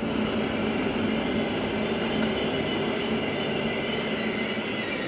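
Steady rumble and rush of a vehicle in motion, with faint high tones over it.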